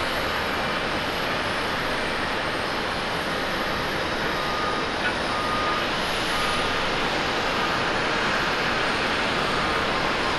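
Boeing 777-300ER's GE90 jet engines running as the airliner comes in to land, a steady rushing jet noise. Faint short beeps recur in the background a few times.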